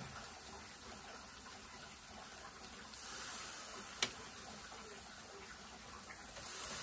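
Marinated chicken tikka pieces on metal skewers sizzling over a small kettle barbecue grill, a steady hiss, with one sharp click about four seconds in.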